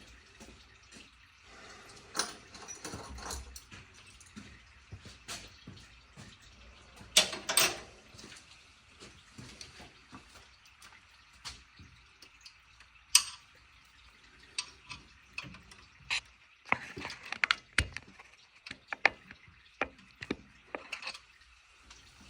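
Scattered light clicks, taps and knocks of hand work on the engine's wiring and parts, irregular, with a few sharper clicks around the middle and in the second half.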